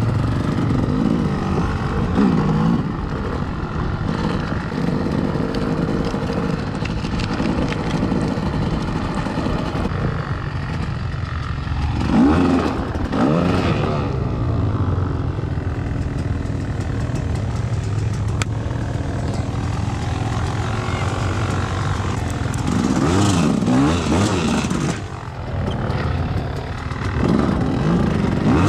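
Off-road vehicle engine running under way, its revs rising and falling several times as it is ridden.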